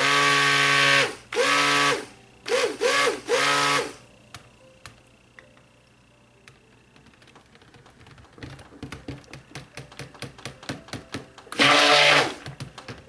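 Handheld stick blender run in short pulses in a plastic pitcher of cold-process soap batter, its motor winding up to speed and down again with each pulse: four bursts in the first four seconds, then another near the end. In between, a run of light clicks and knocks.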